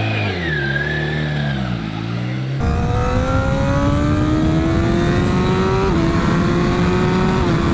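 Racing motorcycle engine revving up and down at low speed. From about two and a half seconds in it accelerates hard, with heavy wind noise on the onboard microphone, its pitch climbing steadily and dropping at an upshift about six seconds in and again near the end.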